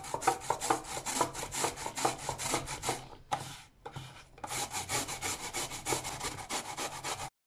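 Peeled raw potato being grated on a stainless-steel perforated grater: quick back-and-forth strokes of potato against metal, pausing briefly about three seconds in while the grater is repositioned, then continuing.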